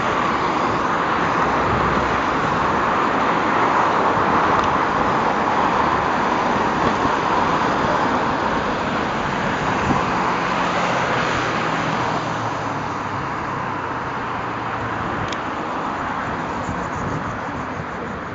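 Steady road traffic noise of cars passing on a busy street, with a low engine hum in the middle, easing off slightly toward the end.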